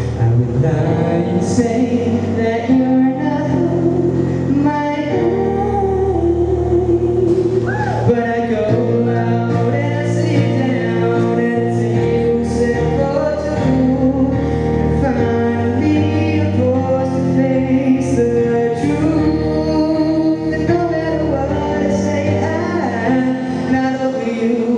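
A male voice singing a song, accompanied by an electric keyboard.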